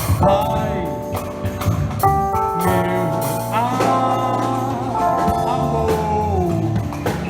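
A band playing a Christian worship song, with a drum kit and sustained melodic notes.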